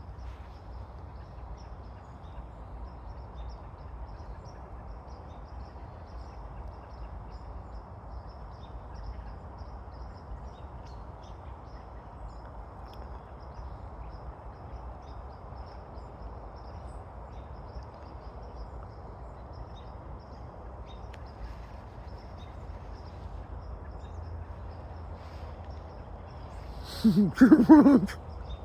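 Steady low outdoor noise with faint high ticks. Near the end comes a brief, loud voiced cry.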